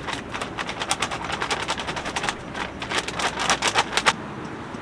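Clear plastic bag crinkling and crackling in gloved hands as chives are taken out of it, a rapid irregular run of crackles that stops about four seconds in.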